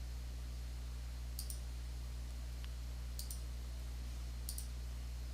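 Computer mouse button clicking three times, each a quick double click, over a steady low electrical hum.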